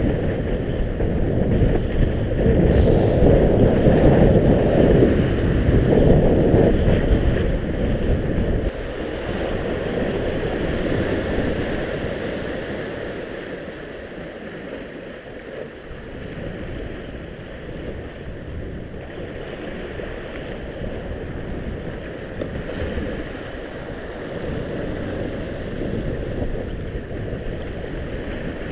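Sea waves washing and breaking against shoreline rocks, with wind buffeting the microphone. The wind rumble is strongest for roughly the first nine seconds, then eases.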